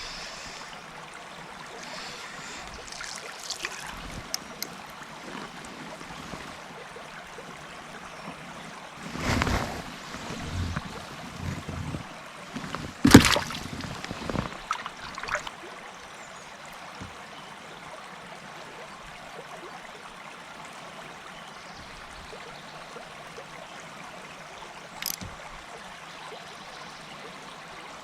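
Steady rush of river water, with a cluster of knocks and handling noises in the middle. The loudest is one sharp knock about halfway through, and there is a single click near the end.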